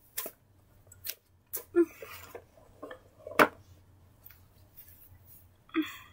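Scattered soft knocks, taps and rustles as stuffed toys are set on and shifted around a plastic toy car, with the sharpest knock a little past the middle.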